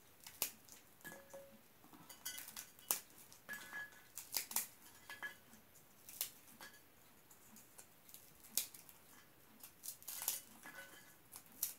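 A puffed-rice bar (poprice) being broken apart by hand, giving faint, irregular crisp crackles and snaps as small pieces come off.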